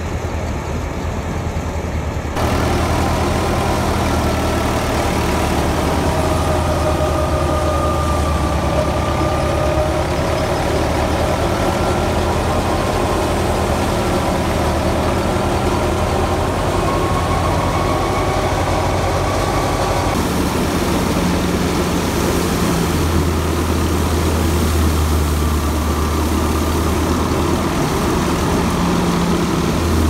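Tractor-driven wheat thresher running steadily under load: a low engine drone with a wavering whine above it. The sound changes abruptly about two seconds in and again about twenty seconds in.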